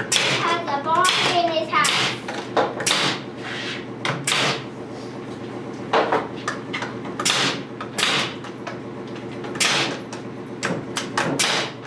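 Pneumatic nail gun firing nails through a siding panel into a wooden frame: about a dozen sharp shots at irregular intervals, several in quick succession near the end. A steady low hum runs underneath.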